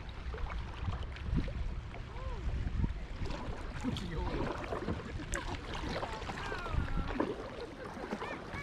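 Out on the river from a kayak: wind rumbling on the microphone, with faint distant voices calling through it.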